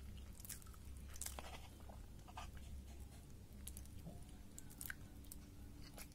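Steel spoon cutting through soft, milk-soaked cake and clicking and scraping against a ceramic plate: a scattering of faint, sharp clicks over a low steady hum.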